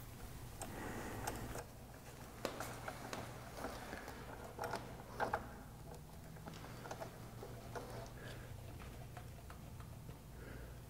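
Faint scattered clicks and ticks of metal hydraulic hose fittings being handled and threaded onto hose ends, over a low steady hum.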